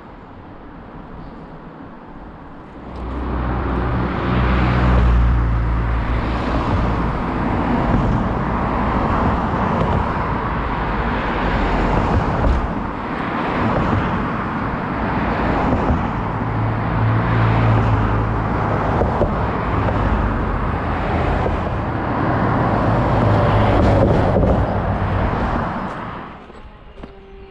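Road traffic passing close by in a steady stream of cars, tyre and engine noise swelling as each vehicle goes past. It starts about three seconds in and dies away near the end.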